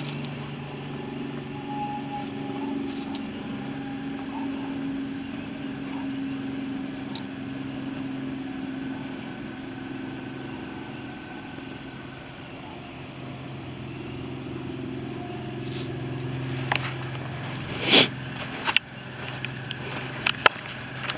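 A steady low mechanical hum, with several sharp knocks and rattles near the end, one much louder than the rest.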